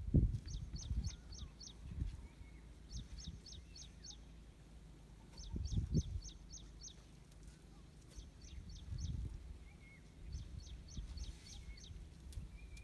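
A bird calling repeatedly: a quick run of four or five short, high notes, repeated every couple of seconds, with low rumbles and thuds underneath.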